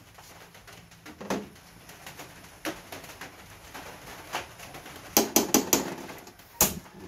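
Metal ladle clinking and scraping against a stainless steel pot while stirring a simmering stew. The clinks come singly at first, then in a quick run a little past halfway, with one last sharp clink near the end.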